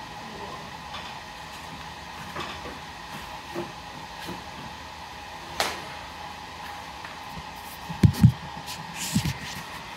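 Small creaks and knocks as a person climbs out of a Humvee's rear bed platform and steps down over the tailgate, with a sharp click about halfway through. Near the end a few heavy low thumps as the camera is picked up and handled, over a steady background hiss.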